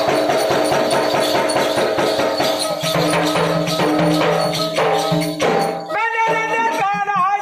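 Gondhal folk ensemble playing a fast, steady beat with jingling, tambourine-like percussion over held instrumental tones. A man's voice starts singing into a microphone about six seconds in.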